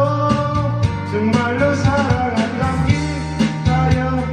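Karaoke: a young man singing into a handheld microphone over a loud karaoke backing track with a steady beat.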